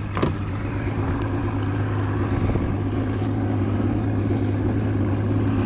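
Boat outboard motor running steadily with an even low hum. A couple of light clicks sound right at the start.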